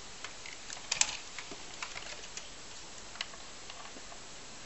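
Light clicks and taps of a computer motherboard and a cable being handled and plugged together, with a cluster of sharper clicks about a second in.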